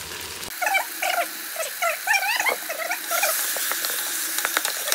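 Chicken and vegetables frying in an electric pressure cooker's inner pot, sizzling from about halfway through as they are stirred with a wooden spoon, with scattered knocks and scrapes. In the first half there is a run of short squeaky chirps that rise and fall, several a second.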